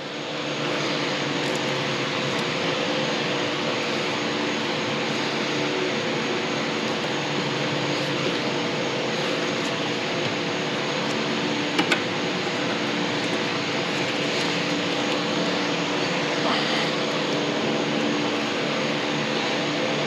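Steady machine drone, a whooshing hum at a constant pitch, with two light clicks about twelve seconds in.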